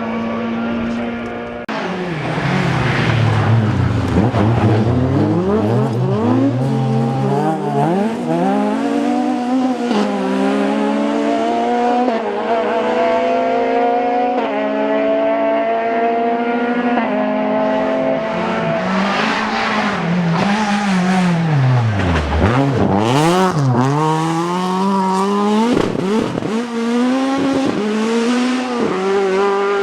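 Ford Escort rally car engine at full throttle. It revs up and shifts up through the gears, and its pitch drops steeply twice as it brakes for corners before accelerating away.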